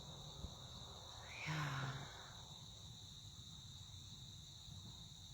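Steady insect chorus, a continuous high-pitched trill. About a second and a half in comes a short, low vocal sound from a person.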